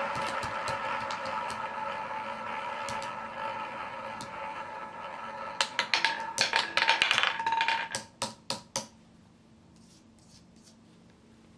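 Two roulette balls rolling round the wheel's ball track with a steady whirring hum that slowly fades. About five and a half seconds in they drop and clatter off the deflectors and pocket frets in a rapid burst of clicks, dying away in a few separate clicks as they settle into pockets about nine seconds in.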